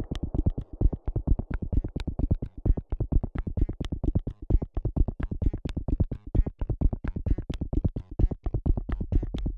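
Glitch electronic music: rapid, stuttering chopped synthesizer pulses, heavy in the bass, with sharp high clicks scattered through them.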